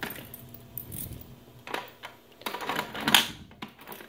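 A key ring jangling and a reset key turning in the lock of a Simplex T-bar fire alarm pull station, with scattered metal clicks and a sharp clack just after three seconds in as the pull station is reset.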